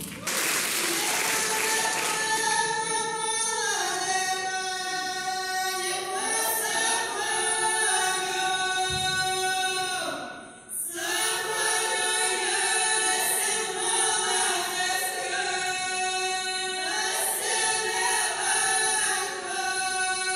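A choir of voices singing a cappella in sustained harmony, in long held phrases with a short break about halfway through.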